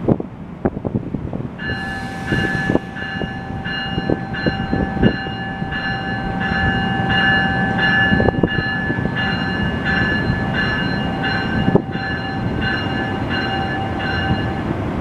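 A train bell rings steadily as the NJ Transit bi-level train pulls out, about one and a half strokes a second, and stops about a second before the end. Under it runs the low rumble of the cars rolling slowly past, with a few sharp knocks at the start.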